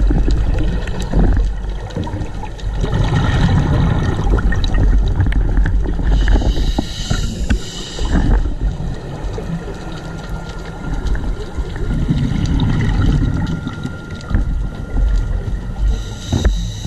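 Underwater breathing of a scuba diver on a regulator: a hiss on each inhale, about seven seconds in and again near the end, between longer stretches of low, rumbling bubbling as exhaled air escapes. Scattered sharp clicks run through it.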